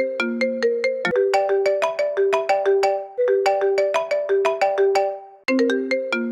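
iPhone-style incoming-call ringtone: a quick, repeating melody of short pitched notes, changing to a denser passage over a held lower note about a second in and back to the opening phrase near the end.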